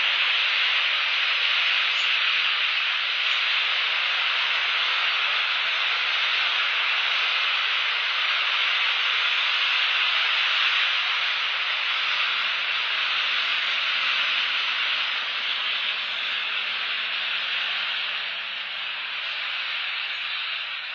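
Heavy rain falling steadily, heard as an even hiss that eases off a little near the end.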